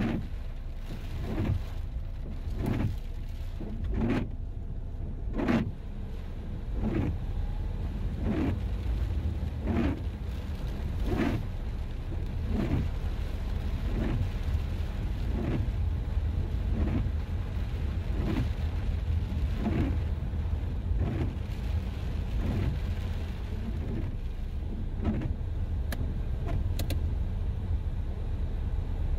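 Car driving with a steady low rumble, and a regular sweeping sound repeating about every second and a half.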